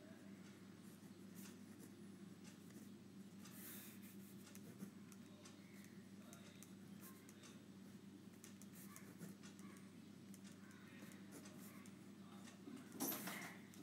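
Faint scratching and tapping of a pen writing, a few short strokes at a time, over a steady low hum. A louder brief noise comes near the end.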